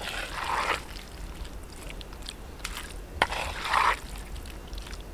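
Wooden spatula stirring thick, sticky beef roast in a pot: two strokes about three seconds apart, each a sharp tap followed by less than a second of wet scraping.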